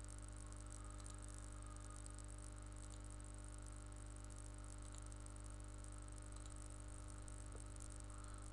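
Quiet, steady electrical hum and hiss of a desk microphone recording setup, with a few faint clicks.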